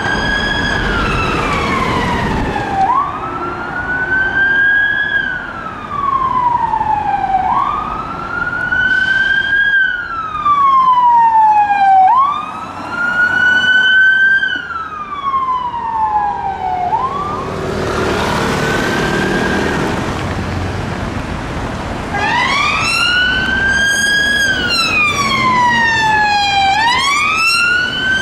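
Police car siren on its wail: the pitch rises quickly and then slides slowly down, over and over, about every four to five seconds at first and faster near the end. Around the middle the siren drops back under traffic noise before the wail comes in strongly again.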